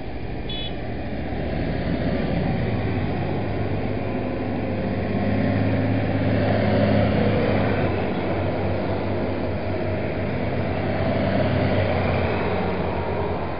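Diesel tractor engines running as tractors drive past one after another. The sound swells about two seconds in, again around seven seconds and once more near the end.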